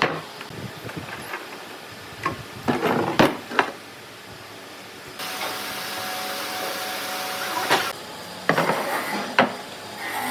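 Workshop handling of wood: a few sharp wooden knocks and clatters, then a steady hiss lasting nearly three seconds that cuts off suddenly, then more knocks.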